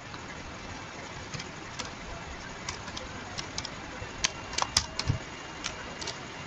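Computer keyboard keys clicking in irregular taps as a line of code is typed, the sharpest tap a little before the five-second mark, over a steady background hiss.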